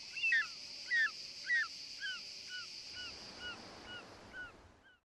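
Cicadas singing steadily, with a bird calling over them in short falling notes about two a second. The first few notes are loudest and the rest fainter, and all sound cuts off suddenly near the end.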